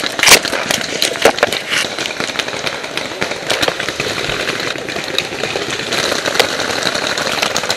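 Paintball markers firing in a rapid, irregular volley of sharp pops, the loudest in the first two seconds, over a steady rushing noise.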